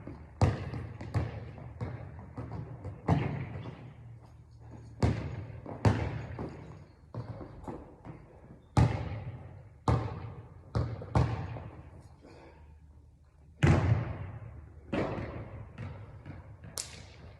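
A basketball bouncing hard on a court, about a dozen echoing thuds at uneven intervals, some in quick pairs and others a second or two apart.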